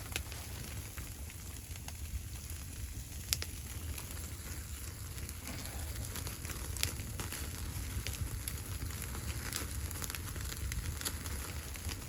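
Wood fire crackling, with a few sharp pops scattered through, over a steady low rumble.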